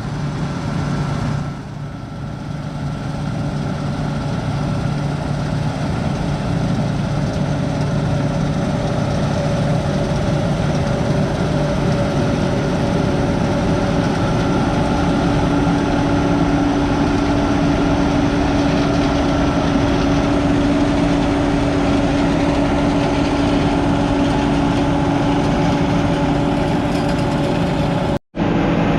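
Heavy diesel engine running steadily, growing louder over the first few seconds and then holding an even pitch. It cuts out briefly near the end.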